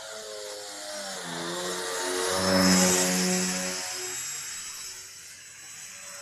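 Radio-controlled model plane's motor and propeller buzzing as it flies past, growing louder to a peak about halfway through and then fading, the pitch dropping as it goes by.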